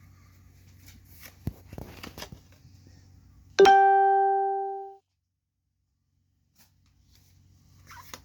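Light crinkling and rustling of a foil trading-card pack being handled. About three and a half seconds in, a single loud, bright ding, like a chimed or plucked note, rings for about a second and a half and then cuts off into dead silence.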